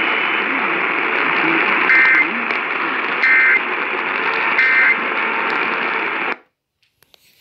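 AM radio reception full of static hiss. Three short warbling digital data bursts cut through it about 1.3 seconds apart: the Emergency Alert System end-of-message code that closes the flash flood warning. The radio audio cuts off suddenly about six seconds in.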